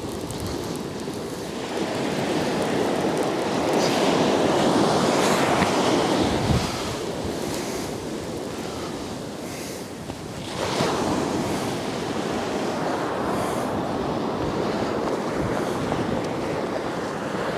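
Sea surf breaking and washing up a beach, in slow swells: one wave builds about two seconds in and another breaks just after the ten-second mark.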